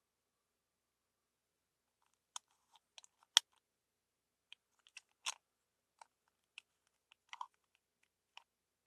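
Scattered sharp clicks and snaps of hard plastic toy parts being handled and fitted together, about a dozen in all, the loudest a little over three seconds in.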